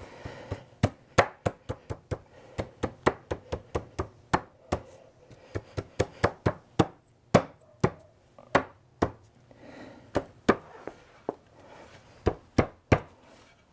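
Many sharp knocks on wood at an irregular pace of about two or three a second, with a short pause near the end: a wooden furniture joint being tapped home during a dry assembly.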